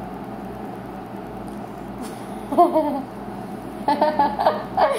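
Steady background hum, then short wordless sounds from a young woman's voice: a brief falling sound about two and a half seconds in and a run of choppy, giggly sounds near the end.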